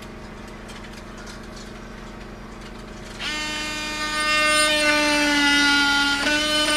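Handheld power drill whining at a steady pitch as it runs against the wooden hull planking. It starts about three seconds in after a faint steady hum, gets louder a second later and dips briefly in pitch near the end, as if under load.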